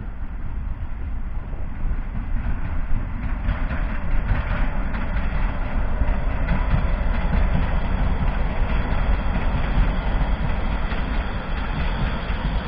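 Diesel-hauled passenger train passing along the yard tracks. The locomotive's engine rumbles and the coaches' wheels run on the rails, growing louder about two seconds in and then holding steady.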